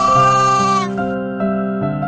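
A sheep bleats once, a high call just under a second long that sags slightly in pitch at the end, over steady background music.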